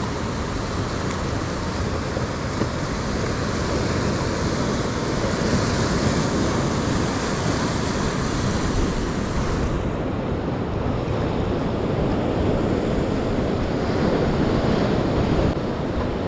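Ocean surf breaking and washing over a rocky shore as a steady rushing, with wind buffeting the microphone; the highest hiss drops away suddenly about ten seconds in.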